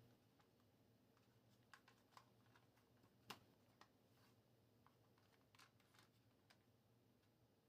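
Near silence: room tone with a few faint, scattered clicks, one a little louder about three seconds in.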